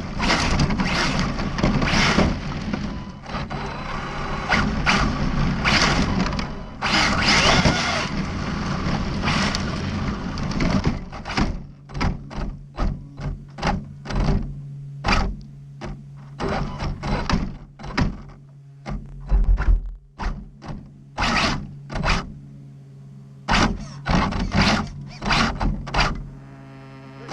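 ARRMA Felony RC car running on a gravel road, with dense, rough gravel and motor noise for about the first eleven seconds. After that comes a long run of sharp knocks and thuds at uneven intervals over a low steady hum.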